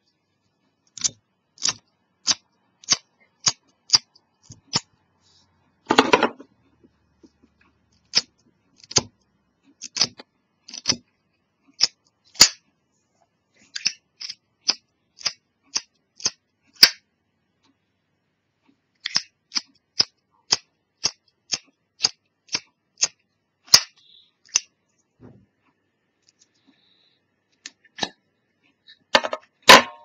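Zippo lighter's metal lid flicked open and snapped shut over and over: sharp metallic clicks a little under two a second, in runs with short pauses, and one longer, rougher sound about six seconds in.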